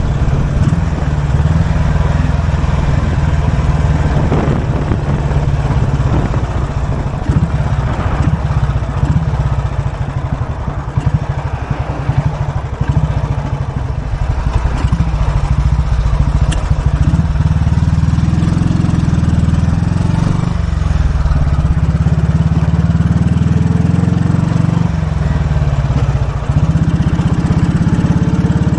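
1943 Royal Enfield WD/CO's 350 cc overhead-valve single-cylinder engine running under way, heard from the rider's seat. The throttle eases off about a third of the way in, and the engine picks up again near the end.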